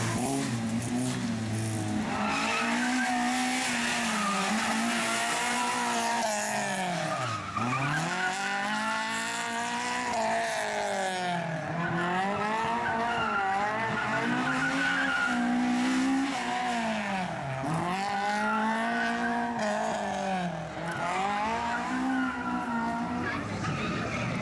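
Slalom rally car driven hard through a cone course: the engine revs up and falls back over and over, about every two to three seconds, as it accelerates and brakes between the cones. The tyres squeal through the turns, loudest in the first half.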